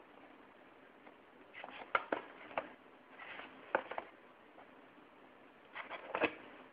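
Box contents being handled: soft rustles and sharp little clicks of paper, card and packaging as a quick start guide is lifted out past coiled cables. The sounds come in three short flurries, about two seconds apart.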